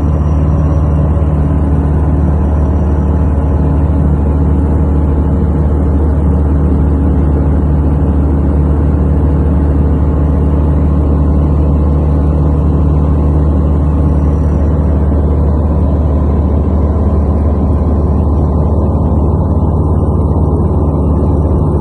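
Light aircraft's piston engine and propeller running steadily, a loud unbroken low drone.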